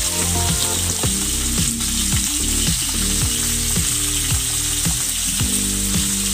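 Whole round scad (galunggong) frying in hot oil in a kawali, a steady sizzle, with background music playing over it.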